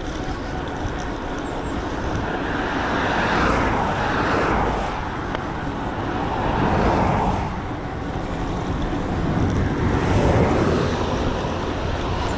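Road traffic passing: three vehicles each swell up and fade away, over a steady low rumble of wind and road noise on the moving bike's microphone.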